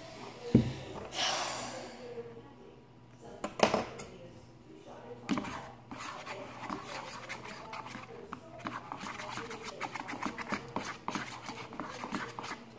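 A spoon stirring and scraping a slime mixture in a plastic bowl, a dense run of small clicks and scrapes in the second half, with a knock about half a second in.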